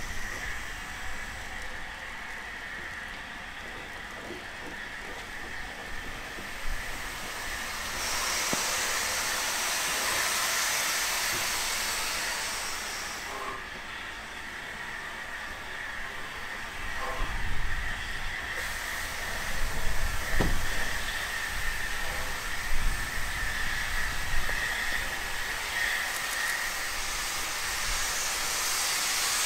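BR Standard Class 4MT 4-6-0 steam locomotive 75078 running in and passing close, with a steady hiss of steam. It grows louder, with a few knocks, about two-thirds of the way through, and the hiss swells again near the end as its steam drifts over.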